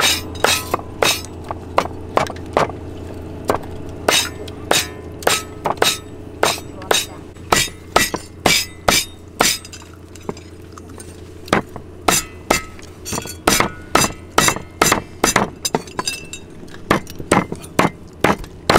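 Rapid, regular chopping strikes of a cleaver on a cutting board, about two a second at first and closer to three a second later, over a steady low hum.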